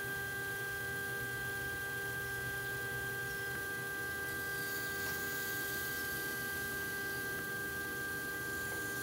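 Electric pottery wheel spinning at a steady speed: a constant high-pitched motor whine over a low hum. A faint scraping of a wooden tool against the clay comes about four to six seconds in.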